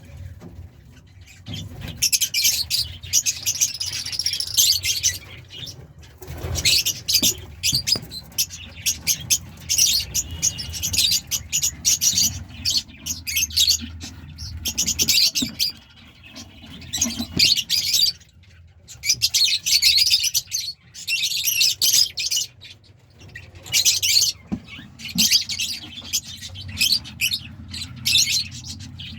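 Pet lovebirds chattering in bursts of rapid, high-pitched chirps, each burst lasting a few seconds with short pauses between.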